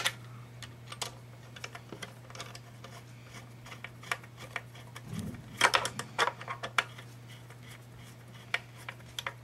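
Small metal screws clicking and tapping against the metal cover of a Kirby vacuum's base as they are set and started by hand, with a quick run of louder clicks about halfway through. A steady low hum sits underneath.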